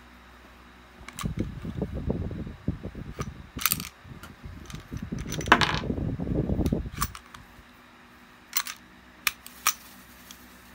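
Tisas 9mm pistol being handled: several sharp metallic clicks of the slide being racked and released, over a few seconds of rubbing and handling noise. A brass cartridge ejected from the chamber clinks onto the wooden table. More single clicks follow near the end.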